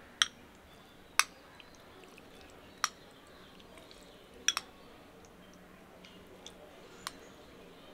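Raw chicken pieces dropping from a glass bowl into a ceramic bowl: about six short, sharp wet slaps and clicks at uneven intervals.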